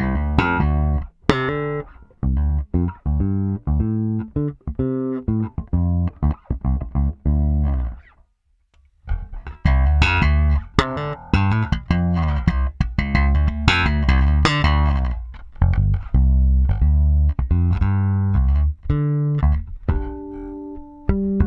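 Fender Jaguar Bass (Japanese-made, two Jazz Bass single-coil pickups) played solo as an electric bass line of short, quickly plucked notes. It breaks off for about a second a third of the way through, then resumes.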